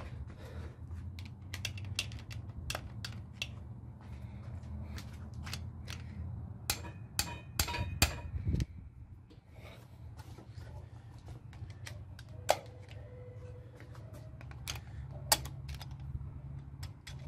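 Ratchet wrench clicking on the connecting-rod cap bolts of a MerCruiser 3.0 L engine as the caps are worked loose, with irregular sharp metal clicks and clinks and a few louder knocks of tool on iron.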